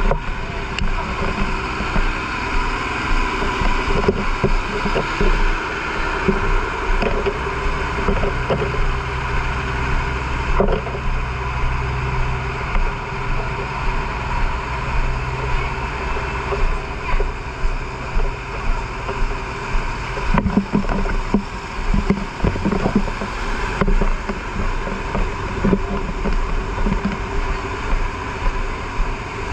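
An engine running steadily, its low hum strongest through the middle stretch, with scattered knocks and voices over it.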